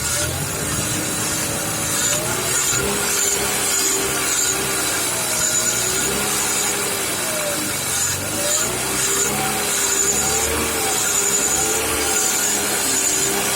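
BMW E46's M52TU straight-six engine running with its revs slowly rising and falling, giving a whistle and ringing from under the intake manifold that appears around 1,500–1,800 rpm. A high thin tone keeps cutting in and out, and the pitched tones sweep up and down with the revs.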